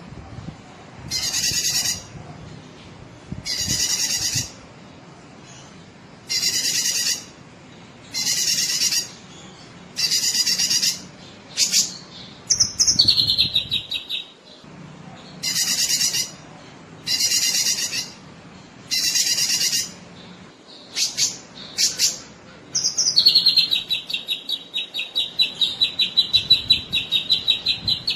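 Cucak kinoi calling: short, harsh chattering notes about every two seconds, broken twice by a rapid trill that drops in pitch and then holds. The first trill is short, about halfway through. The second, near the end, lasts several seconds.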